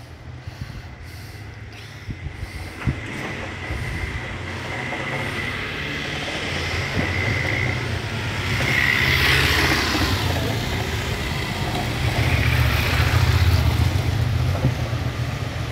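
Motorcycle engine running as the bike passes close by on a stone-paved lane, its rumble growing louder toward the end.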